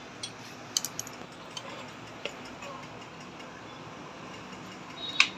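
Scattered sharp metallic clicks from a small spanner and hands working on the gears and nuts inside the open timing case of a Royal Enfield Classic 350 engine, with one louder click near the end.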